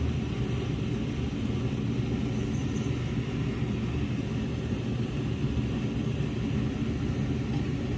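A steady low rumble of background noise that holds at one even level throughout, with no distinct pouring or clinking sounds standing out above it.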